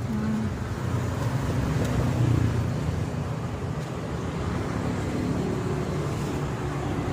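Road traffic: a steady low engine rumble from a passing motor vehicle, swelling a little about two seconds in.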